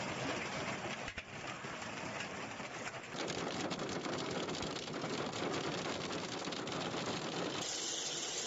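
Hail and heavy rain pelting down: a dense hiss of rain packed with the sharp ticks of hailstones striking the ground and hard surfaces. Near the end it turns into a brighter, higher hiss.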